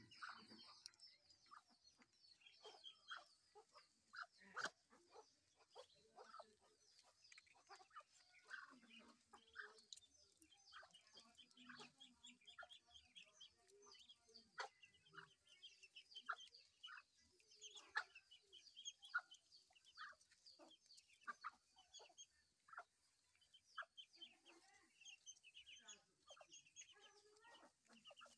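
A brood of ducklings peeping faintly and continually in short, high calls, with scattered lower clucking calls among them.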